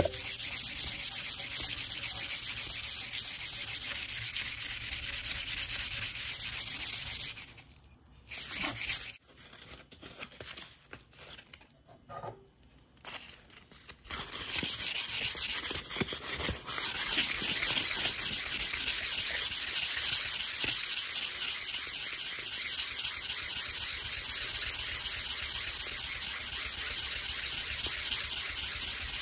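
Sandpaper rubbed quickly back and forth by hand along the steel blade of an old P.S. & W. Co. drawknife. The sanding stops about seven seconds in, leaving only a few scattered short strokes, and resumes steadily about halfway through.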